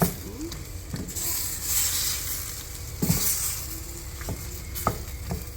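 Chicken pieces sizzling in a hot pot while a spoon stirs them, knocking and scraping against the pot every second or so; the sizzle swells in waves as the pieces are turned.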